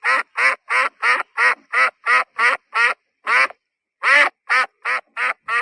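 Duck quacking in a rapid series of short quacks, about three a second, with a brief pause a little past the middle.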